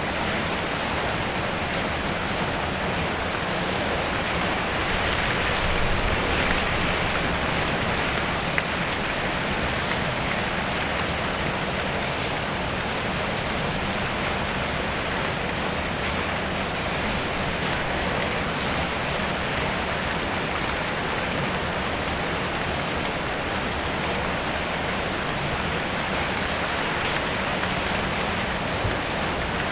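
Steady rain drumming on a car's roof and bodywork, heard from inside the car, with a slight swell in intensity several seconds in.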